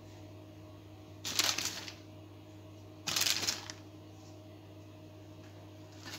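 Two short rustles, about a second and a half apart, as handfuls of shredded cheese are grabbed and scattered over a baking dish, over a low steady hum.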